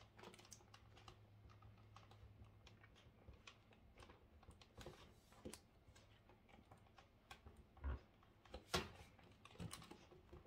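Faint, irregular plastic clicks and ticks as a guitar pick pries the back shell of an Asus PG27UQ monitor away from its snap clips, with a few louder clicks near the end.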